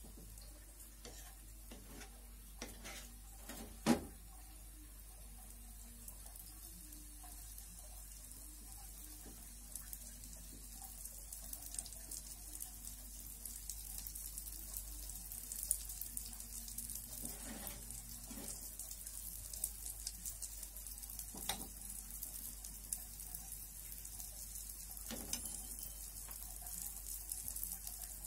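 Pancake batter with banana chunks sizzling faintly in a small nonstick pan on a gas stove, the fine crackle growing stronger after about ten seconds. A single sharp knock about four seconds in.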